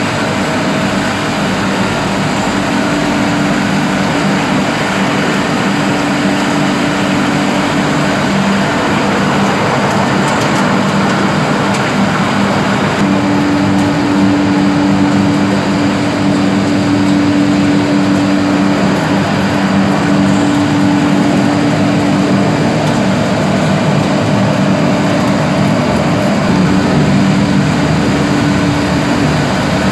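Olive oil mill machinery running steadily: a loud, even mechanical din with a low hum through it.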